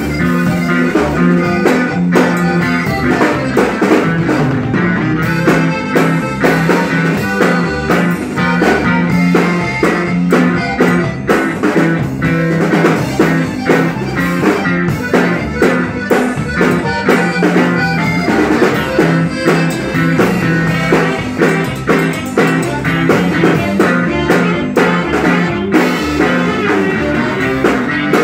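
Live band music: a drum kit keeps a steady beat under an amplified guitar.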